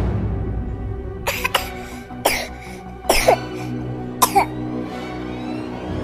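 A baby coughing, about five short sharp coughs between one and four and a half seconds in, over steady background music.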